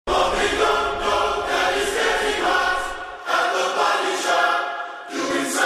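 Music opening with a choir: several voices singing held chords in phrases, over a low bass that drops out about three seconds in.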